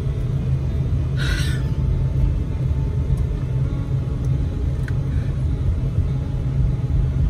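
Steady low rumble of a truck's engine and tyres, heard from inside the cab while driving.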